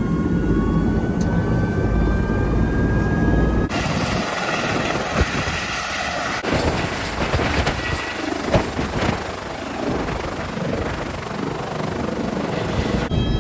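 Helicopter engine and rotor running: a heavy low rumble with a whine rising slowly in pitch, then, after abrupt cuts about four and six and a half seconds in, a hissing rush of rotor and engine noise with a steady high whine.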